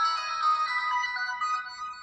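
LG Extravert 2 (VN280) ringtone playing: a synthesized melody with several notes sounding at once, fading out near the end.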